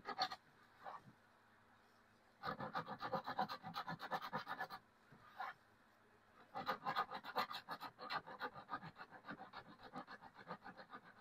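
Coarse sandpaper folded over a finger, rubbed in rapid back-and-forth strokes over a welded crack in a hollow plastic blow mold, in spells of a few seconds with short pauses between. It is taking off the brown scorching that the welding tip left on the plastic.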